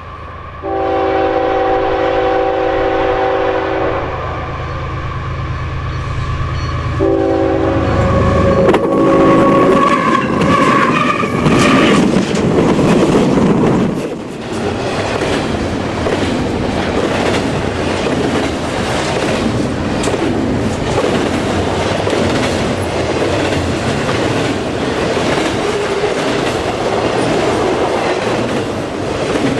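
CN diesel freight locomotive sounding its horn in two long blasts as it approaches, its engine rumbling underneath. As it passes, the steady clatter and rumble of double-stack container cars rolling over the rails takes over.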